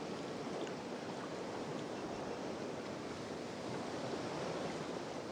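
Sea swell washing and rushing around a kayak, a steady noise of moving water that swells slightly about four seconds in.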